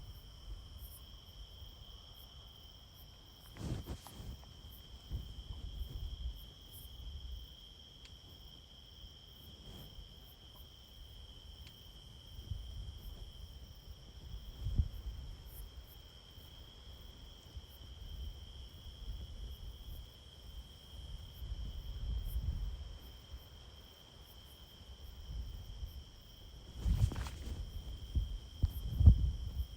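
Steady chorus of night insects, a continuous high trill at two pitches. Low, irregular rumbles of handling or movement at the microphone run under it, with a sharper knock about 4 seconds in and another near the end.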